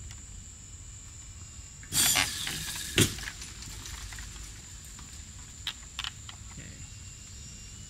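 A short, loud rush of hissing noise about two seconds in, then a single sharp bang about a second later, followed by a few faint clicks. A steady high-pitched whine runs underneath.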